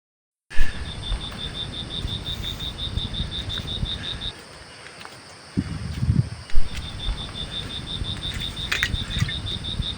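A high-pitched, rhythmic chirping call at about five pulses a second, in two runs with a pause in the middle, from a calling animal such as an insect or frog. Under it runs a low rumble on the microphone, with two sharp knocks, one at the start and one about six and a half seconds in.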